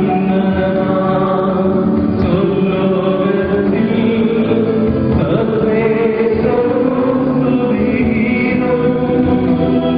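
Hymn sung during Mass, a slow chant-like melody of held notes with instrumental accompaniment.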